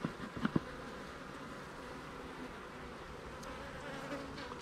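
Honeybees buzzing steadily over an open hive, with a few soft thumps in the first half second.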